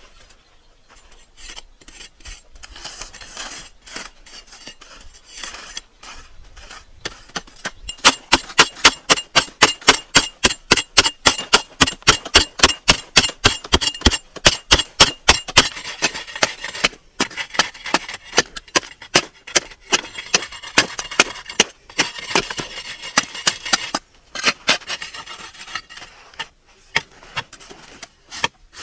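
Metal digging blades chopping and scraping into dry, stony earth. Scraping at first, then a fast, even run of sharp strikes, several a second, for about eight seconds, then irregular scraping and a few single chops.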